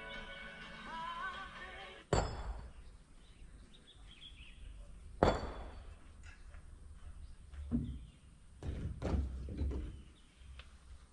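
Kobelco excavator running with a low steady rumble, punctuated by two sharp knocks about three seconds apart and a run of heavier thumps near the end.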